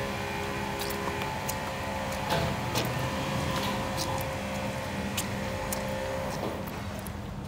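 Hands scrubbing and squeezing raw pig vagina with a cut lime half in a wet plastic tub: scattered wet clicks and squelches of skin on slippery meat, over a steady motor hum.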